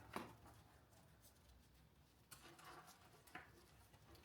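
Near silence with a few faint clicks and rustles of wiring being handled, three times.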